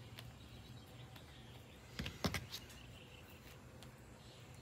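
Faint low background hum with a short cluster of light knocks and clicks about two seconds in.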